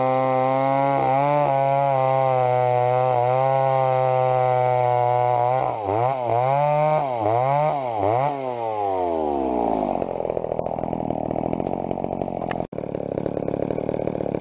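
Two-stroke chainsaw running at full throttle with brief dips in speed, then revved up and down several times. About ten seconds in the throttle is released and the engine winds down to a rough idle.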